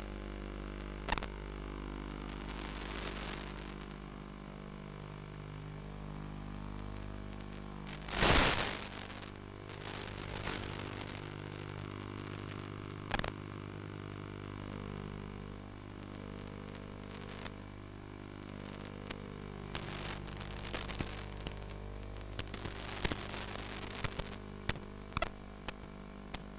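Steady electrical hum and hiss of static on an analog FPV video link's audio channel, with scattered crackles and clicks and one loud burst of static about eight seconds in. The clicks come more often near the end.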